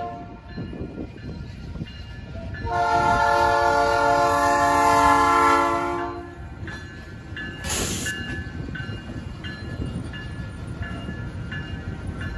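Horn of an EMD SW1500 diesel switcher: the end of one blast, then a long blast from about three seconds in to about six, as the locomotives run over a road grade crossing. Under it the switchers' diesel engines rumble steadily, with a short hiss about eight seconds in, and the crossing's electronic bells ring faintly afterwards.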